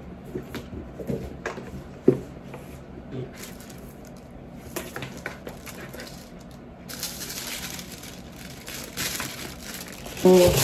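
A cardboard gift box being handled and opened, with small knocks and scrapes as the lid comes off. From about seven seconds in, tissue paper inside rustles and crinkles steadily as it is folded back.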